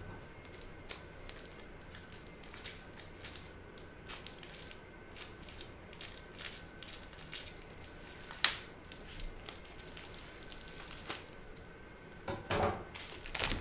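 Scattered light clicks and rustles of a plastic card package being handled, with one sharp click about eight seconds in and a short burst of crinkling near the end.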